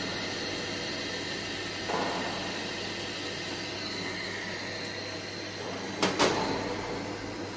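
Steady hum of a tube filling and sealing machine. A soft whoosh comes about two seconds in, and two sharp clicks about six seconds in as a curved stainless-steel sheet guide is handled and fitted onto the machine.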